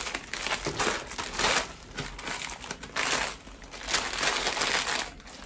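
Plastic snack packets crinkling as they are handled and shuffled in the hands, in irregular rustling bursts.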